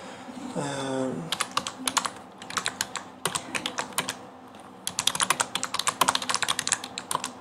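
Typing on a computer keyboard: quick runs of keystrokes, two bursts of clicking with a short pause between them.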